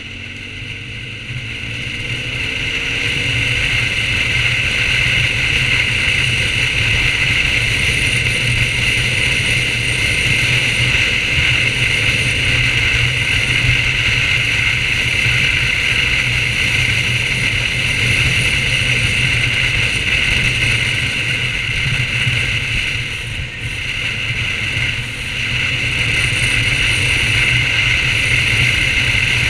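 BMW R1200GS flat-twin motorcycle riding on the open road: the engine rises in pitch as it accelerates over the first couple of seconds, then settles into a steady rush of engine and wind noise at cruising speed, easing briefly about two-thirds of the way through.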